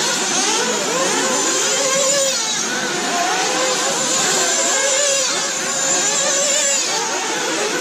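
Several nitro RC cars' small glow-fuel engines buzzing and revving together at once, their pitches rising and falling over one another as they accelerate and lift off around the track.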